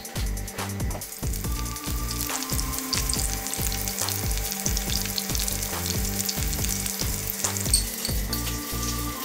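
Breadcrumb-coated chicken breasts sizzling and crackling in hot oil in a frying pan, over background music with a steady electronic beat.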